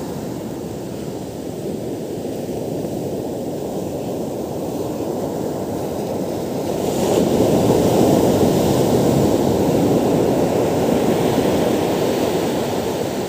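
Surf breaking and washing up a sandy beach, mixed with wind on the microphone; it grows louder about seven seconds in.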